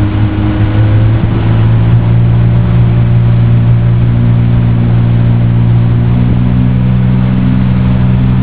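Motorboat engine running steadily at towing speed, a loud, even drone.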